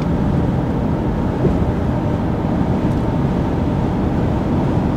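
Steady cabin noise of a 2023 Ram 2500 Rebel at highway speed, about 75 mph: road noise from its off-road tires and the Cummins 6.7-litre turbo-diesel running low, around 1500 rpm.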